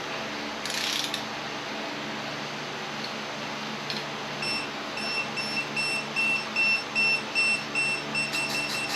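Digital torque wrench beeping in short, evenly spaced high pulses as an engine bolt is pulled toward its set torque; the beeps come quicker near the end as the target is reached.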